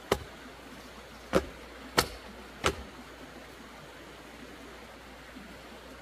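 Four sharp knocks in the first three seconds, unevenly spaced, over a steady low hiss.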